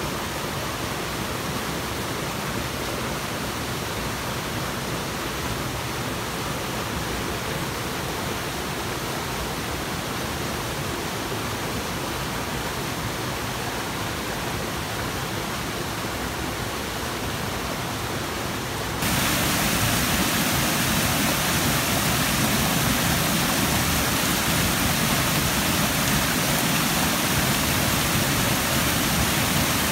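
Steady rush of white water tumbling over rocks in a jungle stream; about 19 s in it cuts to a louder, fuller rush from a waterfall.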